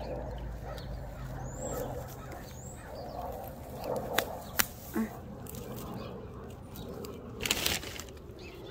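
A hand rustling through a clump of long, grass-like leaves, with two sharp clicks a little after four seconds in and a louder brief rustle near the end. A few short high bird chirps and a low steady hum sit in the background; the hum fades partway through.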